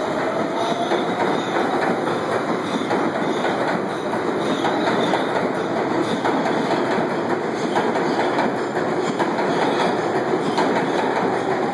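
Kawasaki R142A subway train running past at speed: a steady rumble of wheels on rail with a rapid, continuous clatter.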